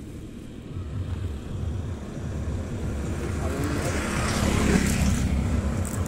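A motor vehicle passing, its noisy rumble building steadily to a peak about five seconds in and then easing off.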